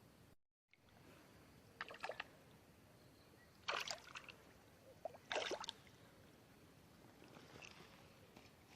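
Water splashing: three short splashes about two, four and five and a half seconds in, then fainter sloshing near the end.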